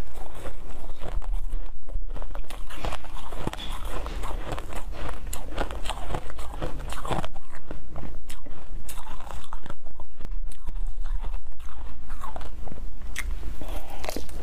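Close-miked crunching and chewing of shaved frozen milk ice, with a dense run of irregular sharp crunches, over a steady low hum.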